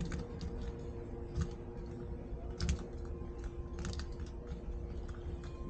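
Irregular light clicks and taps, a few of them sharper, over a steady background hum.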